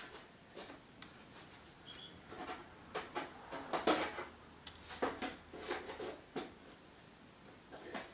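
Light irregular clicks, taps and scrapes of small metal and plastic computer parts being worked with a hand tool against a concrete floor, with the sharpest knocks clustered around the middle.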